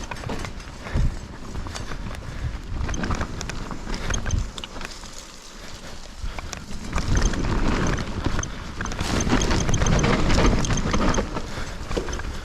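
Hardtail mountain bike clattering over a rough dirt trail: frame, chain and parts rattling with each bump, over the rush of tyres on dirt. It gets louder in the second half.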